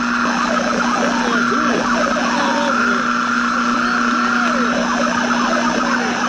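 Worn old film soundtrack with a steady hum and hiss, under many short whistling tones that slide up and down in pitch.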